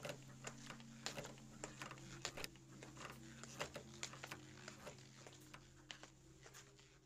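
Faint, scattered crackles and pops at irregular intervals over a low steady hum: an old-film crackle effect.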